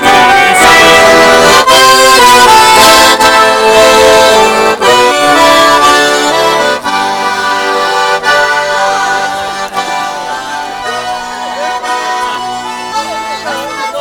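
Russian garmon (button accordion) playing a tune in held, changing chords, with no singing. It is loud at first and quieter from about halfway through.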